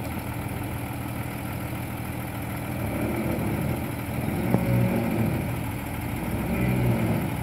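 Jeep Grand Cherokee ZJ engine running at low speed as it crawls over a rock, the engine note rising twice with light throttle, about three seconds in and again near the end.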